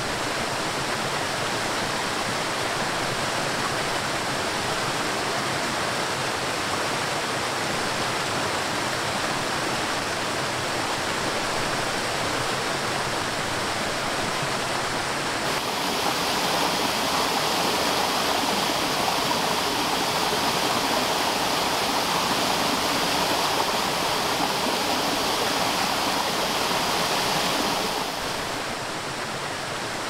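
Rushing water: a steady, even wash of running water. The sound shifts to a slightly brighter, louder wash about halfway through and drops a little near the end.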